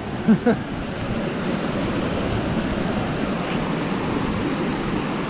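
Steady rushing noise of falling rain and running water, a little louder from about a second in, with a brief vocal sound near the start.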